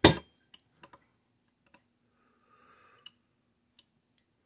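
A screwdriver-hammer tapping a punch to drive a stuck pin out of an HW30S air rifle's action: one sharp metallic tap at the very start, then a pause with a few faint clicks as the tool and punch are handled.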